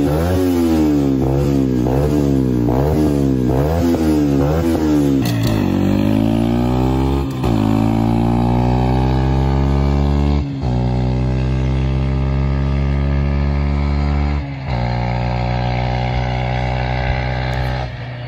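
Beta RR 125 LC motorcycle engine through an aftermarket sport exhaust: revved in quick blips, about six in the first five seconds, then pulling away and accelerating through the gears, the pitch climbing and dropping back at each of four shifts.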